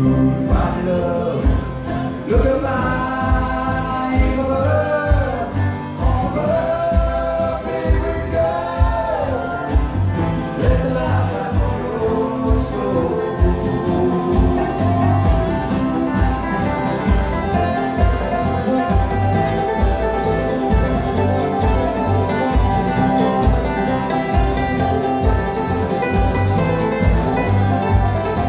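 Live bluegrass string band playing: acoustic guitar and upright bass under a man singing lead for about the first half, then an instrumental break with fiddle, banjo and dobro over a steady bass pulse.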